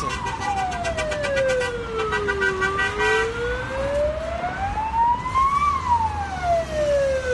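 Emergency vehicle siren wailing, its pitch sliding slowly down, back up, then down again, about five and a half seconds per rise and fall, over a low traffic rumble.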